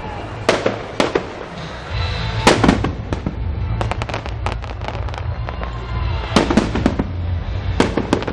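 Fireworks display: aerial shells bursting with sharp bangs, some single and some in quick pairs, and a rapid run of crackling reports about four to five seconds in, over a steady low rumble.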